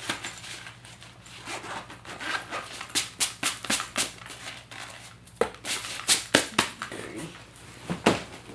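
Irregular clicks and clacks of hard plastic camera accessories being handled and packed into a carrying case.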